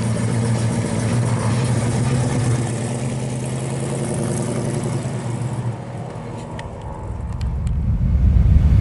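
1973 Ford Mustang Grande's engine running steadily as the car pulls away and drives off, fading about two-thirds of the way through. Near the end a rising low whoosh with a few sharp ticks comes in, the start of an intro sound effect.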